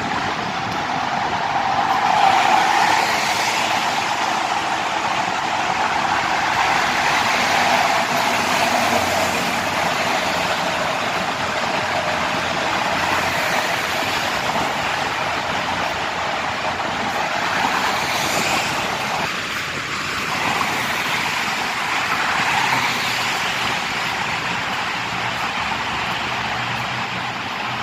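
Steady highway traffic noise, mostly tyre roar, swelling a little now and then as vehicles pass.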